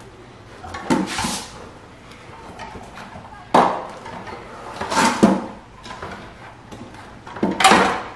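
Mountain bike tire bead being levered over the rim with plastic tire levers: four loud bursts of rubber and plastic scraping and knocking as the tight last section of bead is forced on.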